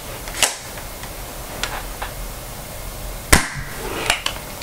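A handful of scattered sharp clicks and knocks from hands handling the laptop close to its built-in microphone, the loudest a little past three seconds in, over a steady low hiss.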